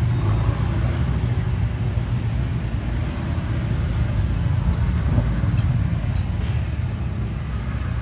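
Steady low background rumble.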